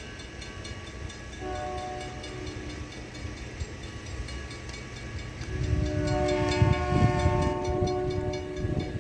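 Freight locomotive's air horn sounding a chord: a short blast about a second and a half in, then a long blast from about five and a half seconds in. Under the long blast the rumble of the passing train gets louder.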